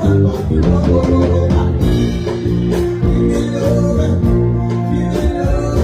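A live band plays an Afrobeats song with bass, guitar and drums keeping a steady beat, and a voice sings over it.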